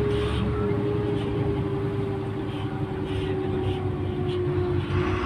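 Güleryüz Cobra GD-272 city bus running: a low engine rumble with a steady whine that sinks slightly in pitch, then holds.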